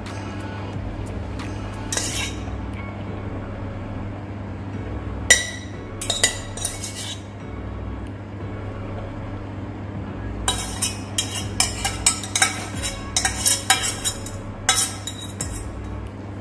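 Metal spoon clinking and scraping against a ceramic bowl as sauce is spooned over cauliflower: a few scattered clinks at first, then a quick run of them in the last six seconds. A steady low hum sits underneath.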